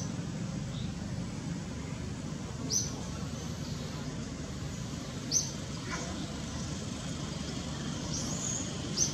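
Short high bird chirps, one every two to three seconds, over a steady low background rumble.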